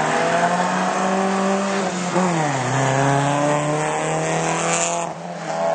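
Drag-racing cars accelerating hard down the strip, the engine note holding steady, dropping at a gear change about two seconds in, then climbing again. The sound breaks off abruptly near the end.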